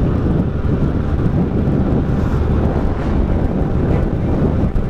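Benelli adventure motorcycle's parallel-twin engine running steadily at speed on a dirt track, with wind buffeting the microphone.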